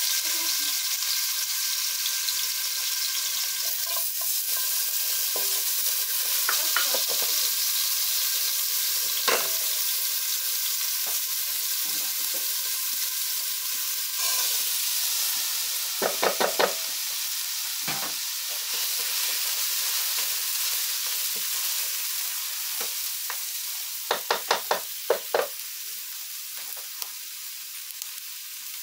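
Seasoning for rice frying in hot oil in an aluminium pot over a wood fire: a steady sizzle. About halfway, raw rice is poured in. Sharp clicks and knocks come twice around the middle and in a quick run near the end, and the sizzle eases toward the end.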